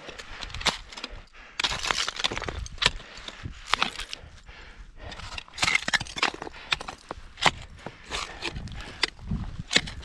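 Black Diamond ice axes struck into snow-covered ice during a climb: a run of sharp thunks and crunches, roughly one a second, with brief scraping of snow and ice between the strikes.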